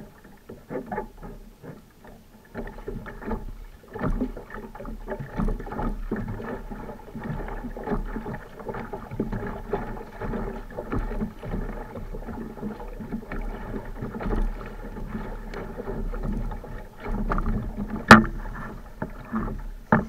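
Kayak paddle strokes splashing, with water lapping and knocking against the plastic hull of a Perception Pescador sit-on-top kayak. There are irregular small knocks throughout and one sharp, loud knock near the end.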